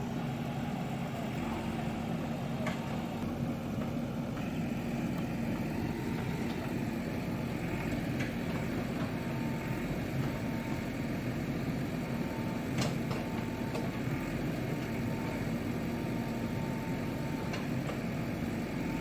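JCB excavator's diesel engine running steadily, with a few faint clicks and knocks over it.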